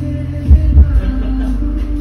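Background music with a deep bass beat and sustained tones.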